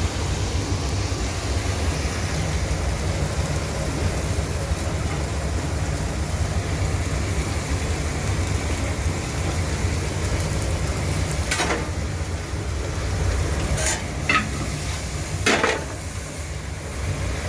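Marinated cowboy steak sizzling as it sears on a hot grill, over a steady low rumble. A few sharp knocks come in the second half.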